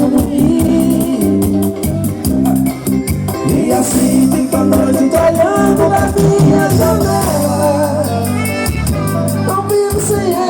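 Live band music with a steady beat and a gliding melody line over it.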